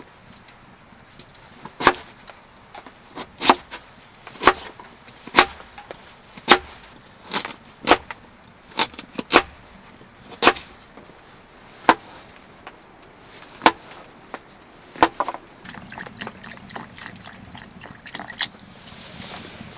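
Kitchen knife chopping potato and carrot on a wooden cutting board: sharp single knocks about once a second. Near the end, broth pouring from a carton into a metal pot.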